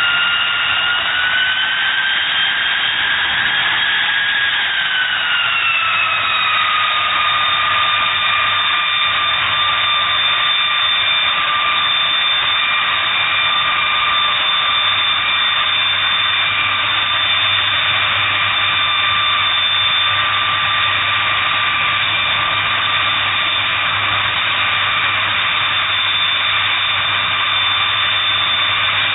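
Boeing B-52H Stratofortress's eight Pratt & Whitney TF33 turbofan engines running on the ground, a loud high-pitched whine. The whine rises slightly, drops in pitch about five seconds in, then holds steady.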